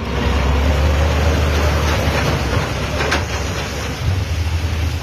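Heavy truck's diesel engine pulling under load up a muddy dirt slope, a steady deep engine note.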